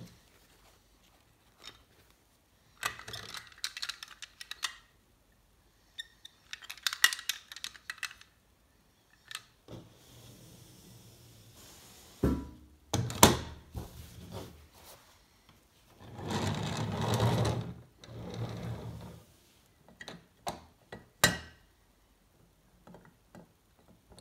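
Small toy garbage truck being handled: parts clicking and snapping together, a few sharp knocks as it is set down on a hard countertop, then a couple of seconds of steady scraping noise. Near the end, more clicks as the dump body is tipped.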